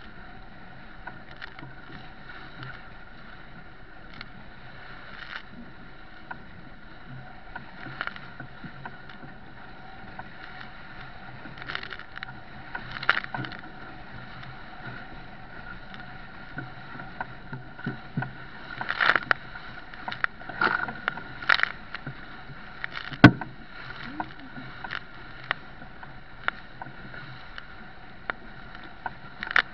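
Sailing yacht driving through rough sea: a steady rush of wind and water along the hull, broken by sharp slaps of waves and spray against the bow. The slaps come more often and louder in the second half, and the hardest one comes about three-quarters through.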